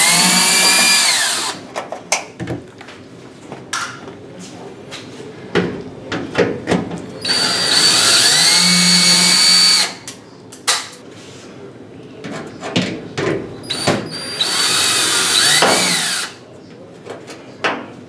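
Cordless drill-driver backing screws out of the oven's sheet-metal top cover: three runs of the motor's whine, one at the start, one about 7 seconds in and one about 14 seconds in, each rising in pitch as it spins up and falling as it stops. Light clicks of handling come between the runs.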